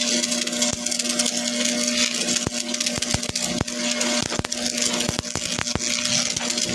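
Stick arc welding on steel: a steady frying hiss, full of sharp crackles and pops, over a steady low hum.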